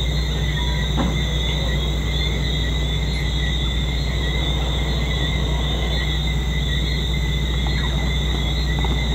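A steady high-pitched chorus of night-calling creatures, holding two unbroken pitches, over a constant low hum. A few faint short whistles and ticks come through on top.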